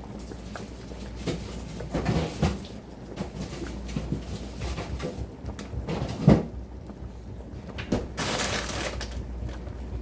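Kitchen handling noises while cooking: scattered knocks and clatter of pots, utensils and cupboards, with one sharp knock about six seconds in and a brief hiss a couple of seconds later.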